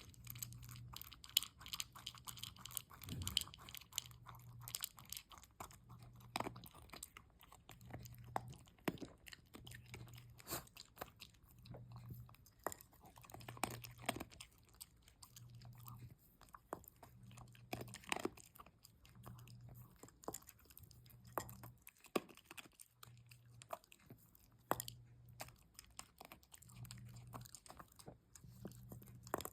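Shiba inu chewing and crunching something hard, with many irregular sharp crunches.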